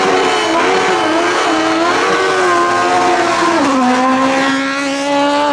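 Ford Escort Mk1 rally car engine revving up and down through a hairpin. About three and a half seconds in the pitch drops at a gear change, then holds steady as the car passes close by.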